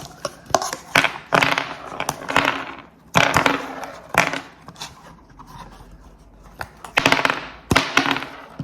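Ice cubes being cracked and popped out of their moulds and dropped into a container: a series of sharp cracks, clicks and crunching rattles, in clusters about a second in, three seconds in and near the end.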